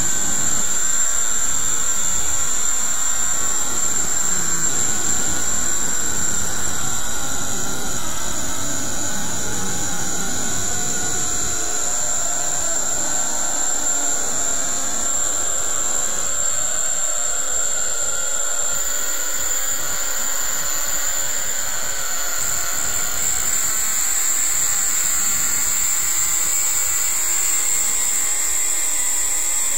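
Steady, loud rushing noise with a constant high-pitched whine over it, like a jet engine, holding level throughout.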